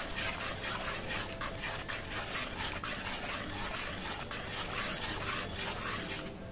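Spatula scraping and stirring through thick, simmering tarka dal of whole green moong and chana dal in a pan. The strokes are rhythmic, about two or three a second, and stop near the end. The dal is being stirred steadily through its long cook.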